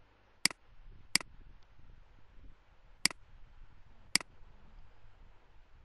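Four sharp computer mouse clicks at uneven intervals, over faint room hiss.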